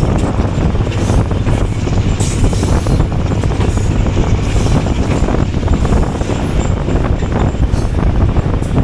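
Passenger train running at speed, heard from on board: a loud, steady rumble of the wheels on the track.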